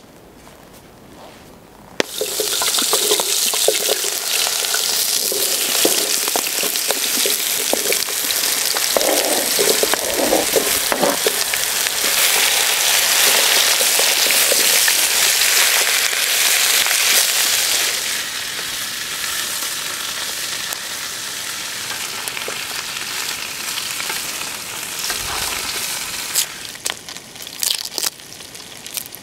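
Raw potato wedges hitting hot oil in a frying pan, starting a loud sizzle about two seconds in that stays loud, eases somewhat past the middle and dies down near the end. A few small crackles of dry onion skin being peeled follow at the very end.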